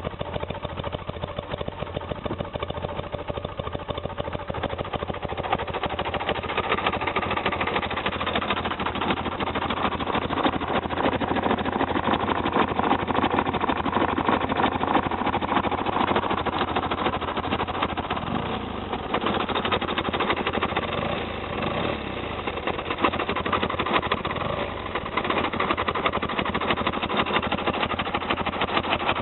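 BMW R90S's air-cooled flat-twin boxer engine running after start-up, its sound swelling and easing a few times as the engine speed changes.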